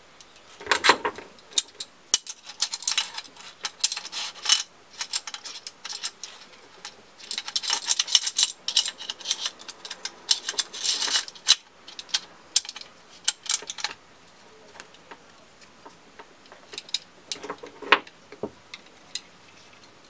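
Clicks, taps and scraping of a flashlight and an offset rail mount being handled and fitted together by hand. The sound comes in several bursts of rattling clicks, with a quieter stretch before a few last clicks near the end.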